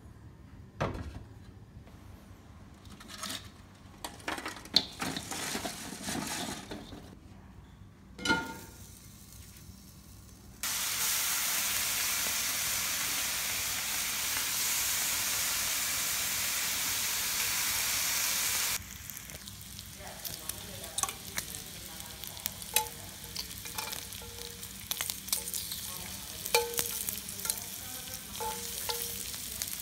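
Bacon frying in a cast iron skillet over charcoal. Scattered knocks and clicks give way, about a third of the way in, to a loud, steady sizzle that stops abruptly some eight seconds later. After that comes quieter crackling and spattering with light taps of metal tongs against the pan.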